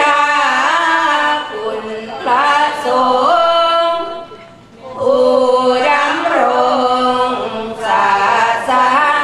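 A women's troupe chanting a Thai Buddhist sarabhanya verse to an Isan melody, unaccompanied, in long held notes that slide between pitches. There is a short pause for breath about four and a half seconds in, then the chant picks up again.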